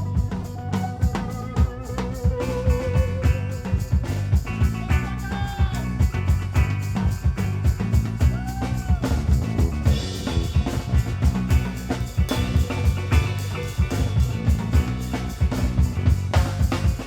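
A live rock band with violin and banjo playing an instrumental passage: drums keep a fast, busy beat under bass, guitar, banjo and violin, with a wavering held note about two seconds in.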